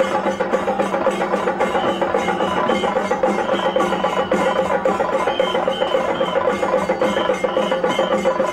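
Music with a fast, steady percussion beat.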